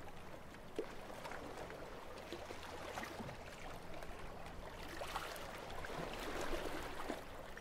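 Shallow sea water lapping and trickling among rocks along the shore, a soft uneven wash dotted with small splashes.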